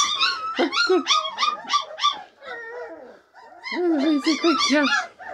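Bernese mountain dog puppies yipping and whining in quick runs of short, high-pitched calls, with a brief lull about halfway through.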